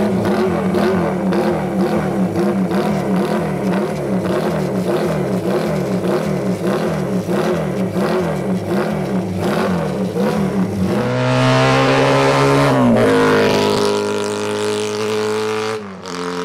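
Honda CB550 air-cooled four-cylinder engine with open megaphone exhausts, just started, revved up and down over and over, about twice a second. From about eleven seconds in it runs under load as the bike pulls away, at a higher, steadier pitch that steps down twice.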